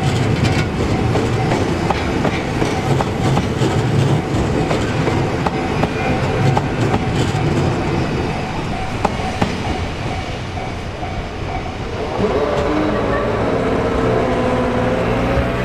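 Train wheels clattering over rail joints as a train runs past, a quick, irregular series of clicks over the rumble. About twelve seconds in the clatter stops and a steady hum with a few held tones takes over, rising slightly in pitch.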